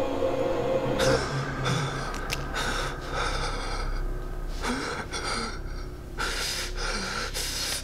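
A young man sobbing, with about half a dozen ragged, gasping breaths starting about a second in.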